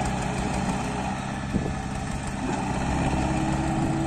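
Diesel tractor engine running steadily as it pulls a loaded soil trolley, with one brief knock about a second and a half in.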